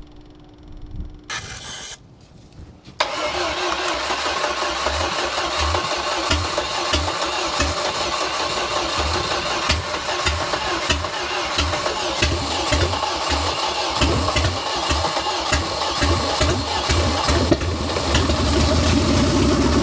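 3.0-litre four-cylinder marine engine on a test stand being cranked by its starter and firing unevenly, stumbling without settling into a steady idle: a hard start on an engine that has just been given more fuel. It kicks in abruptly about three seconds in and runs a little steadier near the end.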